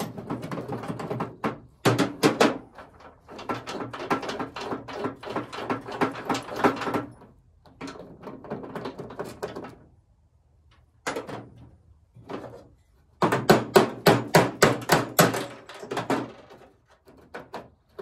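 Socket ratchet clicking in several quick runs, about six to eight clicks a second, with short pauses between them, as the large retaining nut of the trunk-lid lock is worked off.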